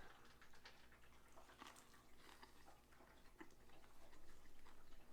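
Near silence with faint, scattered small clicks of someone chewing a bite of fast-food burger.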